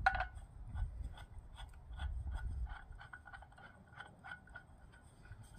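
Light, irregular clicking and scraping, about three small clicks a second with a sharper one at the start, from hands working the parts at the head of an unpowered Milwaukee 9-inch angle grinder. The motor is not running.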